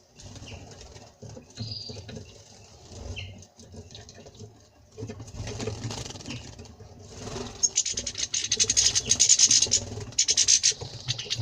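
Small finches, a European goldfinch and a common rosefinch, bathing in water: wings flicking and pattering in the water, with a couple of short high call notes in the first few seconds. From about eight seconds in, a fast, dense splashing takes over and is the loudest part.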